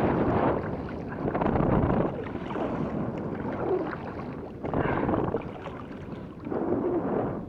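Gusting wind buffeting the microphone, rising and falling every second or two, with water moving against the kayak.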